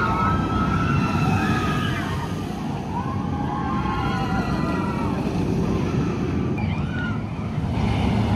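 Sik steel roller coaster train running down its drop and round the track with a steady rumble of wheels on the rails, over it riders screaming in wavering bursts.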